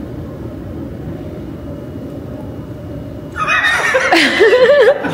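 A low, steady background noise, then men laughing loudly, starting about three and a half seconds in.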